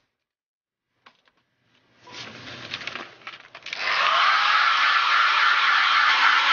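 A few clicks and some clattery rustling, then past the middle a loud, steady rushing hiss of blown air starts, with a faint whine rising as it comes up to speed.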